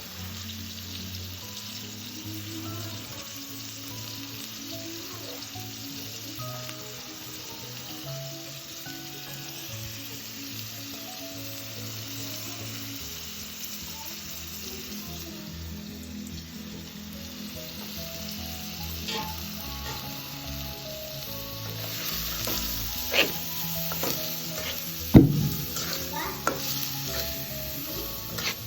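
Food frying and sizzling in a pan, a steady hiss that grows louder in the last several seconds. A utensil stirs and knocks against the pan, the loudest knock coming a few seconds before the end. Soft background music plays underneath.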